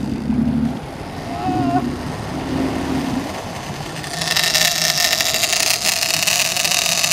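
Sportfishing boat running at sea: a steady engine hum with rushing water. About four seconds in, a loud steady hiss comes in suddenly.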